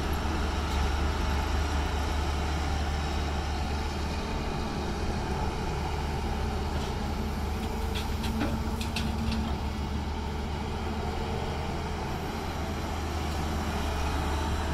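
Hyundai 210 crawler excavator at work, its diesel engine running steadily. About eight to nine and a half seconds in, a brief hum and a short run of clatter come as it tips a bucket of earth and stones into a dump truck.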